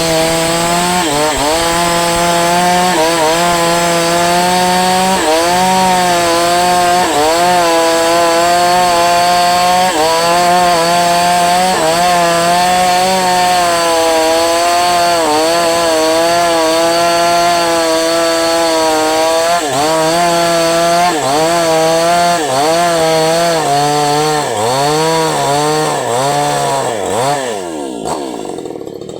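Falcon Evo 9000 two-stroke petrol chainsaw running at high revs, its pitch dipping and recovering every second or two. Near the end the engine revs fall away and it winds down.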